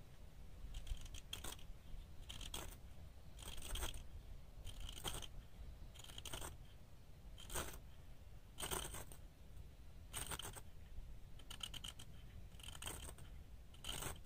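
A dozen short scraping strokes, evenly paced at about one a second, like a blade drawn across a hard surface.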